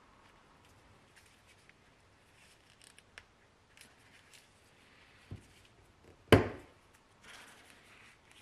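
Small clicks and rubbing of nitrile-gloved hands fitting new O-rings and a plastic cap onto a fuel injector, with a light knock a little past five seconds in and one sharp, loud click about a second later.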